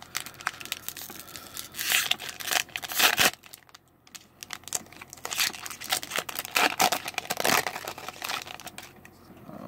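Foil wrapper of a Magic: The Gathering booster pack being torn open and crinkled by hand, rattling and ripping in two spells with a short lull about four seconds in.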